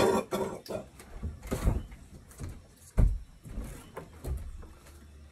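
A brief burst of voice at the start, then several dull, low thumps, the loudest about three seconds in.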